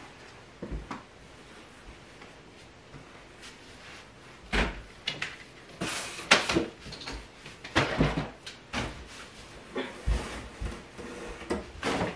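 Knocks, bumps and clatter of a tall framed full-length mirror being worked free from behind cardboard moving boxes and handled. It is fairly quiet for the first few seconds, then a string of sharp knocks of varying strength starts about four seconds in.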